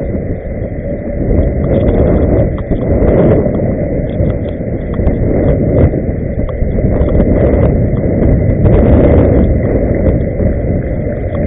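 Loud, steady low rumble of wind on the microphone and inline-skate wheels rolling on pavement, with no clear tones or single impacts.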